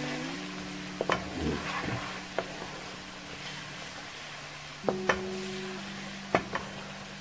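A wooden spoon stirring onions and ground spices frying in oil in a non-stick wok: a steady sizzle, with the spoon knocking against the pan several times, twice in quick pairs. The spices are frying down into a masala base.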